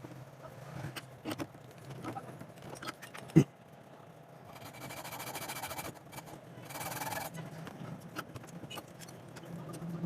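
Bench work on a small plastic trigger part: scattered light clicks and taps of tools and parts, one sharp knock a third of the way in, and two short stretches of scraping or rubbing in the middle.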